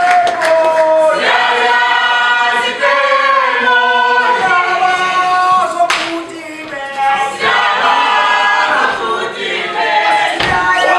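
A group of young voices singing together a cappella in harmony, loud from the first moment. There is one sharp smack about six seconds in.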